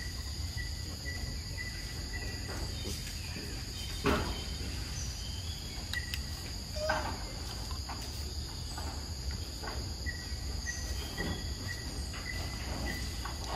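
Steady, high-pitched drone of insects. A short chirp repeats about three times a second for a few seconds at the start and again near the end, and two brief soft knocks come about four and seven seconds in.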